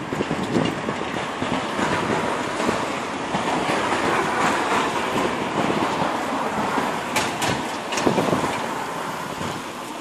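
Outdoor city street noise: a steady wash of passing traffic that swells mid-way and fades near the end, with wind buffeting the microphone in low rumbles and a few sharp ticks a little after halfway.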